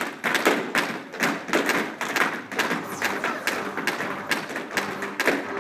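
Tap shoes of a line of young dancers striking a wooden floor: a dense, uneven run of sharp taps, several a second, from many feet not quite together.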